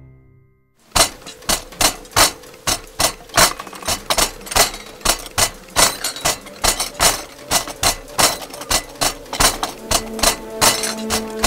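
Knives and forks clattering against plates, sharp clinks in quick uneven succession, about three a second, starting about a second in. Held musical notes come in underneath near the end.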